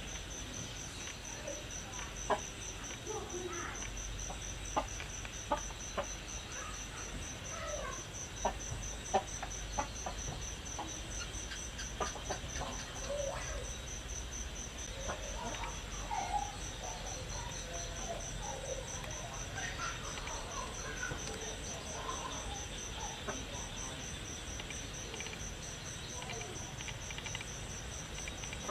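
Crickets trilling steadily in a high, evenly pulsing chirp, with chickens clucking now and then through the middle. Several sharp clicks stand out in the first ten seconds.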